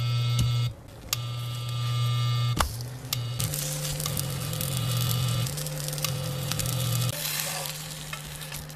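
Electric cooktop humming steadily, cutting out and back in a few times, under frying batter sizzling in a nonstick pan, with clicks and scrapes of a plastic spatula turning the pancakes.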